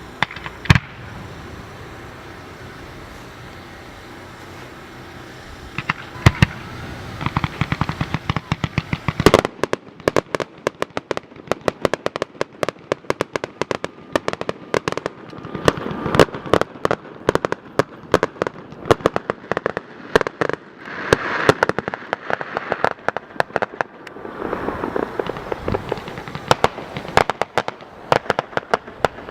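Fireworks display: a single sharp bang about a second in, then after a lull, rapid volleys of bangs and crackling pops that go on densely through the rest.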